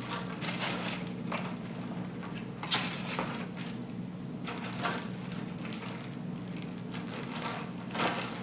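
Cardboard box and packaging being handled: scattered rustles and light knocks, the two loudest about three seconds in and near the end, over a steady low hum.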